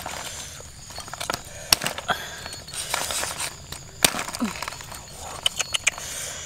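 A cleaver cutting up a whole roast chicken: crisp skin crackling and sharp cracks of joints and bones breaking, the two loudest snaps about two and four seconds in, then a quick run of smaller cracks near the end.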